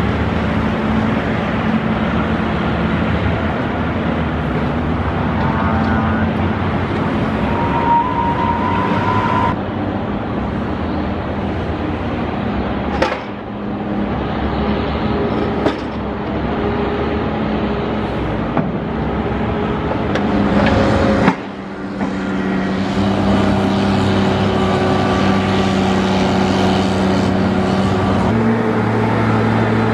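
Engines of snow-removal machinery, a loader-mounted snowblower and dump trucks, running steadily with street traffic. The sound comes in spliced segments that cut off suddenly and change every few seconds.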